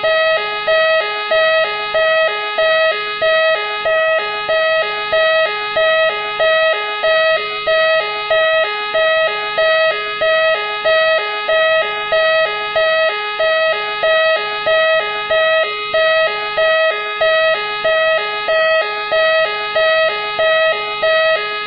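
Police siren of Machine X cycling steadily. It repeats its two-tone, sweeping pattern about once a second.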